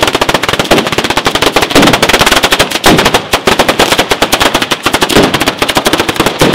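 A firecracker batteria: a long chain of ground firecrackers exploding in rapid, unbroken succession, many loud sharp cracks a second like machine-gun fire.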